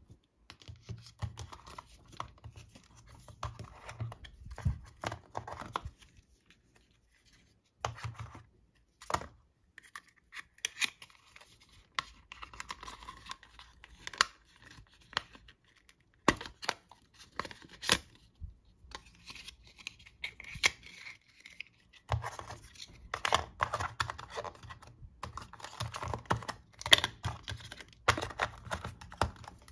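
Apple Watch box packaging being handled: cardboard and paper rustling and scraping with irregular sharp clicks and taps, broken by a couple of brief pauses, as the paper-wrapped charging cable and charger are lifted out of the tray.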